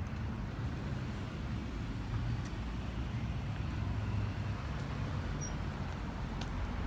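A steady low outdoor rumble, like road traffic, with a couple of faint clicks about two and a half seconds and six and a half seconds in.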